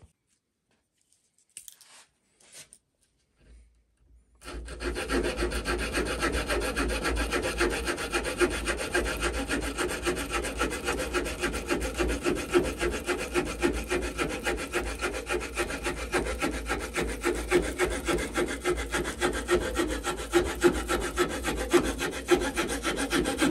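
Victorinox pocket-knife saw blade cutting through a wooden branch held in a bench vise. Fast, continuous back-and-forth rasping strokes start about four seconds in, after a few faint handling knocks. The saw is cutting well, getting through in about 20 seconds.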